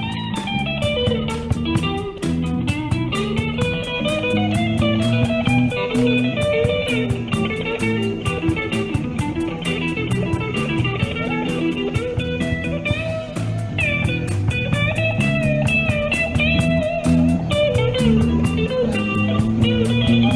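Background music: blues-style electric guitar over a steady beat.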